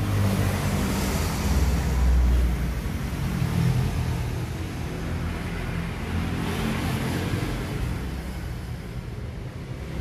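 Steady low rumble with a hiss, swelling about two seconds in and again around six and a half seconds.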